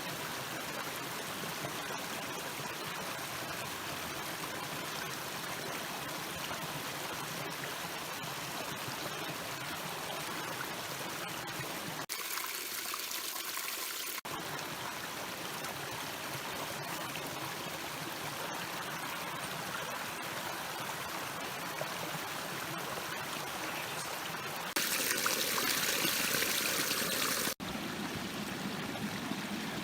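Stream water running and trickling steadily, louder for almost three seconds near the end.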